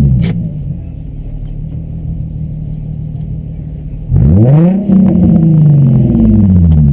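Car engine through a loud exhaust. Its revs fall back to a steady idle at the start; about four seconds in it is revved again, the pitch climbing and then sinking back over two or three seconds.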